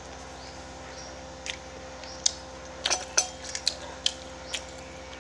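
Scattered light clicks and taps of eating utensils against a plate, several in quick succession around the middle, over a faint steady hum.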